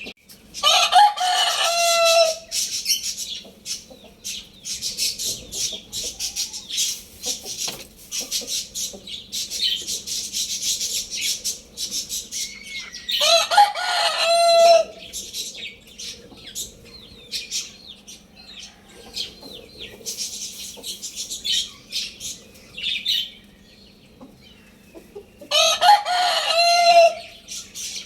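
Rooster crowing three times, each crow a long call of about two seconds, about twelve seconds apart. A near-constant chatter of short high chirps runs between the crows.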